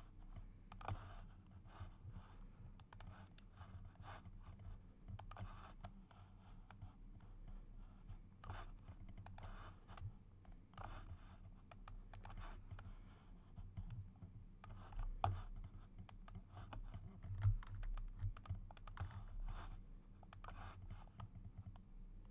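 Irregular clicks and taps from a computer keyboard and mouse, over a low steady hum.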